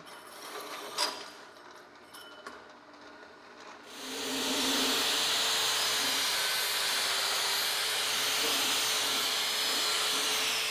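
A drill-driven hole saw grinds faintly and slowly through steel tube. About four seconds in, an electric angle grinder spins up and runs steadily with a hiss and a held whine, its disc scouring rust off the steel square tube.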